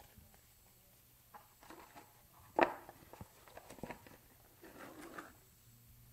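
Handling noise from a small cardboard knife box and a paper catalogue: light rustles and clicks, with one sharp knock about two and a half seconds in and a short rustle of paper or card near the end.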